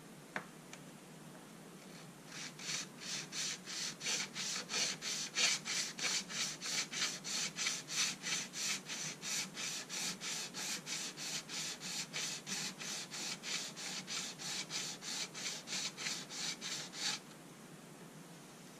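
A Wilkinson Sword scissor blade stroked back and forth over a metal sharpening plate: steel rasping on the plate at about three strokes a second, starting about two seconds in and stopping near the end. The strokes take tiny burrs off the blade's edges.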